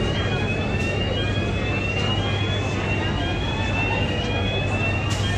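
A repeating rising electronic warning tone, about one sweep a second, over the steady low hum of the Highspeed 7 fast ferry's machinery, typical of the alarm that sounds while the ship's hatch is opening.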